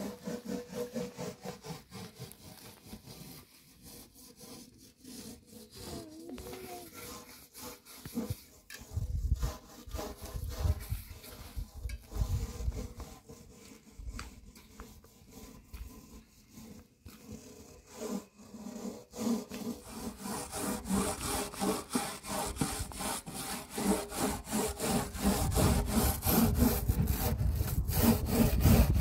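Hands kneading stiff bread dough in a metal bowl: repeated rubbing, pressing and squishing strokes, growing stronger and more regular in the last third, with a few dull low thumps.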